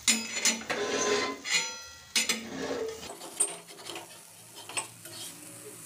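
A flat metal spatula scraping and clinking on an iron tawa as spinach vadis are pried up and turned over. There are several strokes, most of them in the first half.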